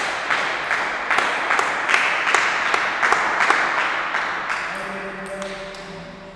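Applause from a small audience, many hands clapping with a steady beat, dying away over the last couple of seconds.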